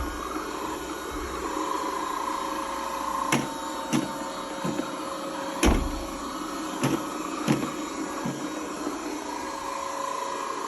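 Robot vacuum cleaner running with a steady motor hum and whine, broken by several sharp knocks a few seconds in.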